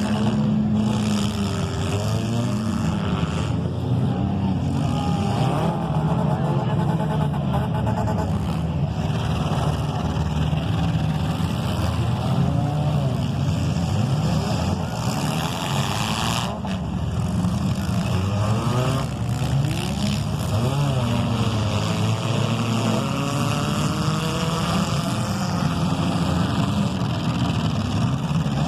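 Several compact cars' engines running and revving during a demolition derby heat, their pitch rising and falling repeatedly as they are driven hard.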